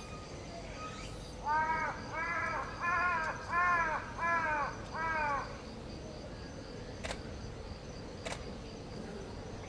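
A crow cawing six times in a row at an even pace, each caw a harsh call of about half a second that rises and falls. Two faint clicks follow near the end.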